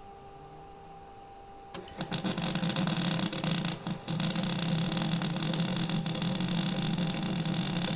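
Electric arc welding on steel: after a low steady hum, the arc strikes suddenly about two seconds in and crackles and sizzles steadily, with two brief breaks around four seconds in.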